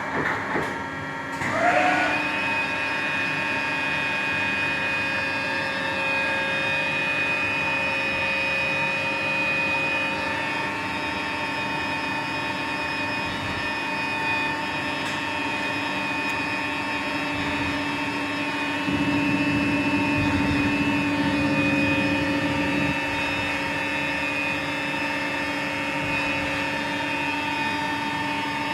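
Gildemeister NEF CT40 CNC lathe running, with a steady whine of several held tones from its spindle drive. In the first two seconds the whine drops sharply and rises again in pitch as the spindle changes speed. About 19 seconds in, a louder, rougher noise joins for some four seconds.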